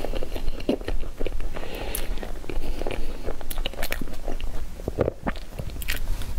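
A person chewing a mouthful of soft green cake roll, with wet smacks and many short clicks from the mouth. Near the end she bites into the cake again.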